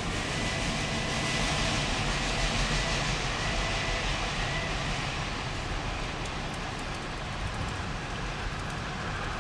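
Empty autorack freight cars rolling past, a steady noise of steel wheels running on the rails, with a faint thin high squeal that fades out about halfway through.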